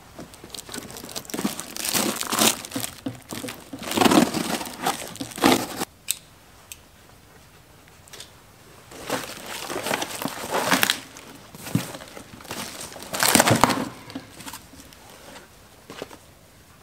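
Cardboard shipping box being torn open and its packing paper handled, in irregular bursts of cardboard tearing and paper crumpling with short pauses between them.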